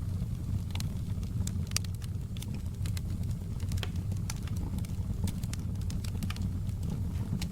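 Fire burning in a home fireplace, crackling with frequent sharp, irregular pops over a steady low rumble.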